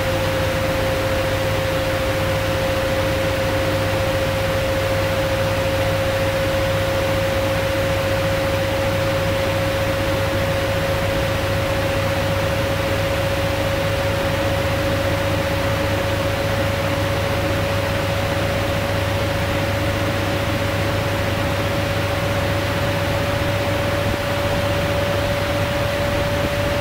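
Washing machine spinning: a steady motor whine that creeps slowly up in pitch over a constant rushing noise and low hum.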